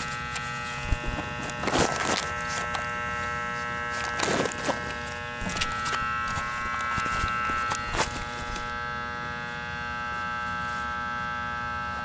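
Leaves and weeds rustling in short bursts, several times, as they are pushed aside by hand. Underneath runs a steady electrical buzz made of several held tones.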